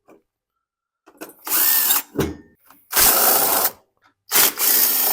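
Cordless drill fitted with a 3/8-inch socket, running in three short bursts of under a second each, backing out small screws.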